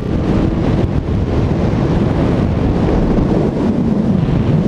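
Heavy wind buffeting the microphone on a moving motorcycle, with the bike's engine running steadily underneath.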